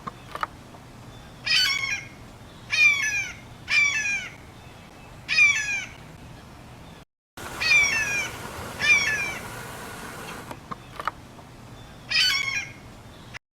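A bird giving a series of loud, harsh calls, each with a downward-bending tone and spaced about a second or more apart, with a short break a little past the middle.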